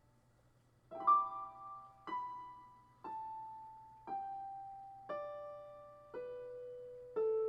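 Slow, soft solo piano improvisation: after about a second of quiet, a chord is struck roughly once a second and left to ring out, the melody stepping downward.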